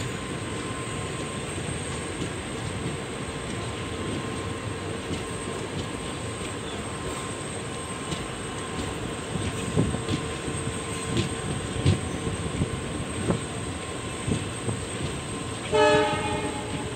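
Indian Railways express passenger train running at speed, with a steady wheel-and-rail rumble and scattered knocks from rail joints. Near the end, a train horn sounds once for about a second.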